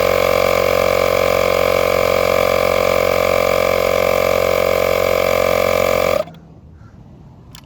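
Makita DMP180 18 V cordless inflator's compressor running with a steady buzz while pumping up a car tire, then cutting off abruptly about six seconds in, as it shuts off at its set pressure of 34 psi.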